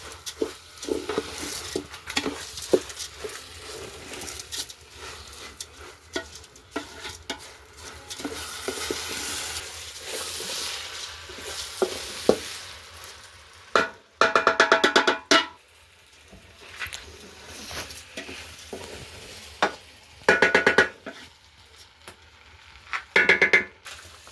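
Stirring in a cooking pot: a spoon scraping and knocking against the pot over food sizzling, with three short, loud pitched bursts, one near the middle and two near the end.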